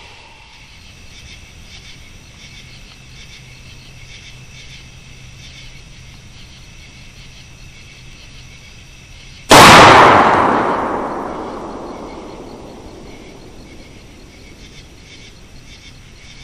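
A single rifle shot at a hog about nine and a half seconds in, its report rolling away over several seconds.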